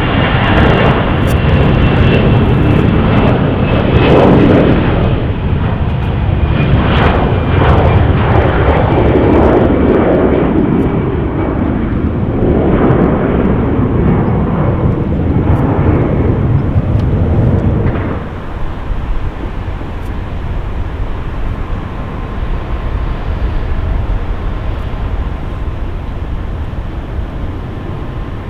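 Jet airliner engines, loud and close, with a rumble whose pitch bands shift as the aircraft passes. The noise drops abruptly about eighteen seconds in to a quieter steady engine hum with a faint whine.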